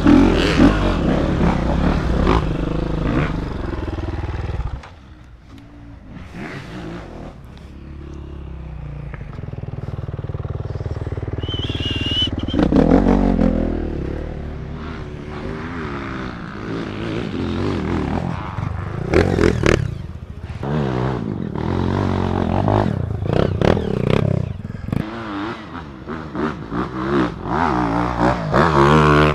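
Dirt bike engines revving on a steep dirt hill climb. A close engine runs loud at first and drops away abruptly about five seconds in; after that other trail bikes are heard revving in surges as they climb.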